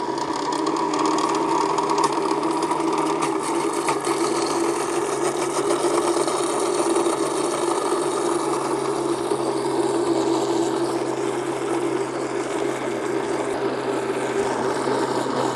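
Electric blender running steadily, whipping raw eggs. Its motor hum drops slightly in pitch about three seconds in.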